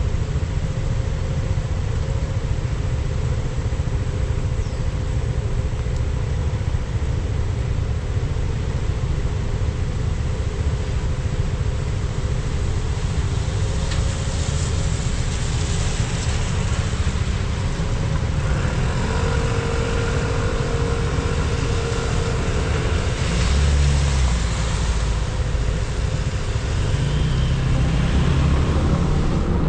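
Road noise of a car being driven: a steady low rumble of engine and tyres, with a higher hiss that swells twice, about halfway through and again near the end.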